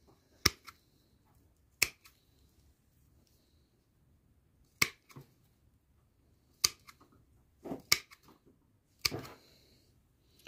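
Hand pruning shears snipping through the stems of panicle hydrangea seedlings: about six sharp snips at irregular intervals, some with a small second click as the blades close or reopen.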